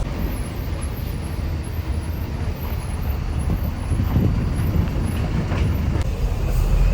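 Cab interior of a moving truck: steady engine and road rumble, heaviest in the low end, getting louder and deeper near the end.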